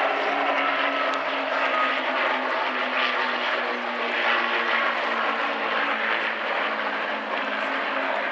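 Piston-engined propeller aircraft, an Avro Lancaster bomber flying in formation with two fighters, passing overhead with a steady engine drone.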